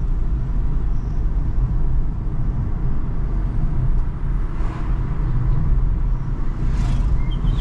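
Steady low road and engine rumble heard inside the cabin of a moving car, with two brief swells of hiss about halfway through and near the end.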